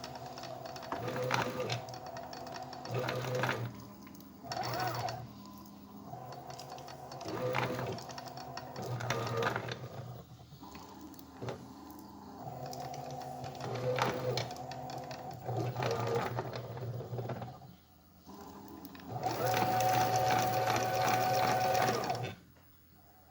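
Stepper motors of a homemade CNC machine driving its axes on a test run: whining tones that start, stop and shift pitch with each move, in a sequence that repeats about every six seconds. Near the end comes a louder steady whine lasting about three seconds, which cuts off suddenly.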